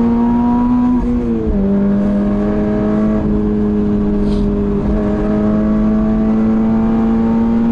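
Toyota GR86's 2.4-litre flat-four (boxer) engine heard from inside the cabin under hard acceleration. Its note climbs steadily, drops about a second in on the upshift from third to fourth gear, then climbs again, with a brief dip near five seconds.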